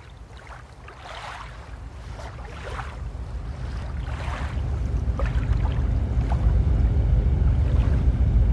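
A boat's engine rumbles and grows steadily louder, while its wake splashes and rushes over it.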